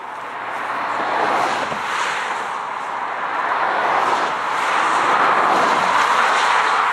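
Road traffic passing close by: a steady rush of tyre and engine noise that swells about a second in and again in the second half.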